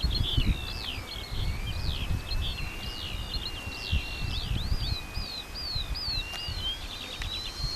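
Birds chirping in quick repeated sweeps over a thin, steady whine from the radio-controlled Po-2 scale model's engine in flight. The whine sinks in pitch and then climbs again near the end as the model flies around. Wind rumbles on the microphone underneath.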